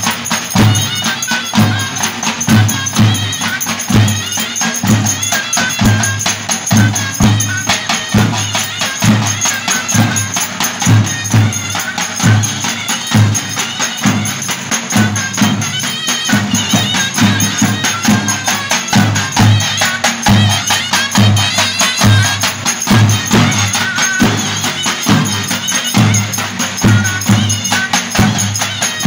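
Two davul drums beaten in a fast, steady dance rhythm: heavy low strokes from the mallet with sharp clicks from the thin switch, and a busy wavering melody line above them.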